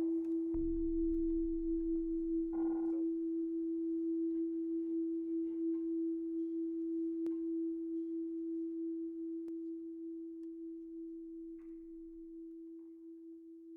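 Electronic music ending on one sustained low pure tone that slowly dies away. A short burst of hiss comes about three seconds in.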